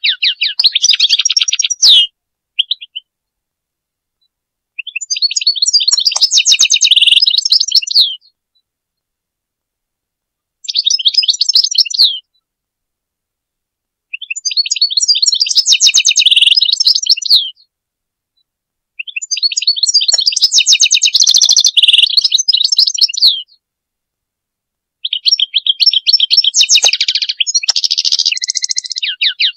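European goldfinch singing: rapid, high twittering song in phrases of one to four seconds, about six of them, separated by short silences.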